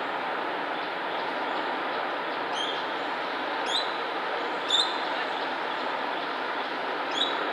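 Coconut lorikeet giving about four brief, sharp, high-pitched screeches, the loudest about five seconds in, over a steady rushing background noise.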